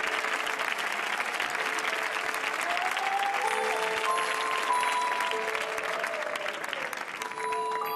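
Studio audience applauding over entrance music made of long held notes; the clapping dies away near the end while the music carries on.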